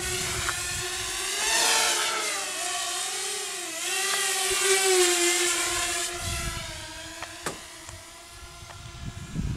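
Walkera Rodeo FPV racing quadcopter's motors and propellers whining, the pitch rising and falling as the throttle changes. It swells louder twice, then fades toward the end as the quad flies off.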